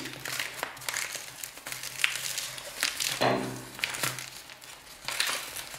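Paper sugar packet opened and unfolded by hand: irregular crinkling and rustling of the stiff paper.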